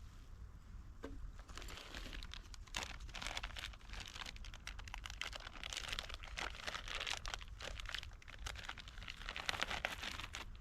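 Packaging crinkling and crumpling as it is handled: dense, irregular rustles and small clicks.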